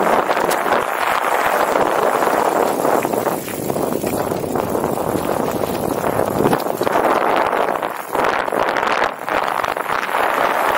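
Bicycle rolling fast downhill on a rough mountain track: steady rolling noise of tyres over gravel and stones, with scattered clicks and rattles.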